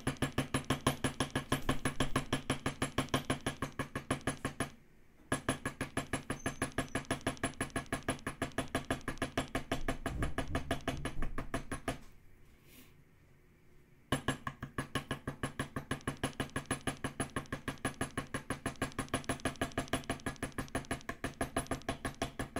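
A small leather beveler struck rapidly with a mallet, bevelling the stem line of a tooled leaf on cased leather over a marble slab: an even run of sharp taps, about five a second. The tapping stops briefly about five seconds in and for about two seconds near the middle.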